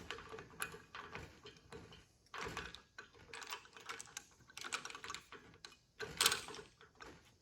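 Scattered clicks and light metal clacks, uneven in spacing, from the Mastercool 71550 AC hose crimper being taken back off the hose after a crimp. The loudest cluster comes about six seconds in.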